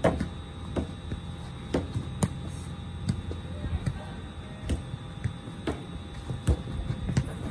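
A football being struck in a teqball rally: a series of sharp thumps, about one a second, from kicks, a header and bounces on the curved teqball table, over a steady low background rumble.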